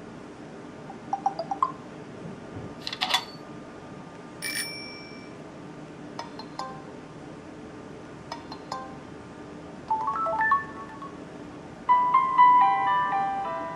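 Samsung Wave S8500's built-in message alert tones previewed one after another: about seven short electronic jingles and chimes, each a second or less, with a bell-like ding about four and a half seconds in and a longer melodic jingle near the end, the loudest.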